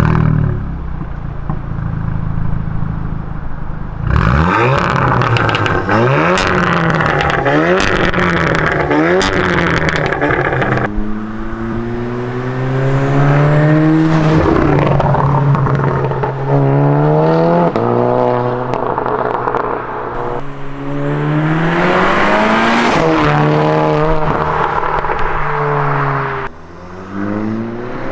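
Milltek exhaust of a tuned Volkswagen Arteon R's 2.0 TSI turbocharged four-cylinder: a steady idle just after a cold start, then revved repeatedly with sharp pops and crackles from about four seconds in, then hard acceleration with the engine note climbing and dropping back at each gear change.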